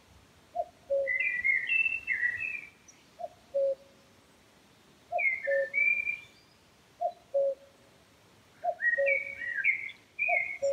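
Woodland birdsong: a low two-note call, falling from the first note to the second, repeating every couple of seconds, with bursts of higher, quicker song from another bird.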